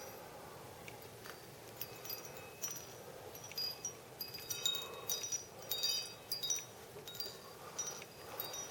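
Wind chimes ringing, struck irregularly by the wind, with the chimes busiest about halfway through.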